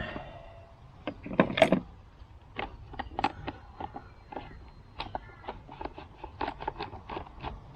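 Irregular light clicks and knocks of hands handling a chainsaw and its parts, with one heavier knock about a second and a half in. No engine running.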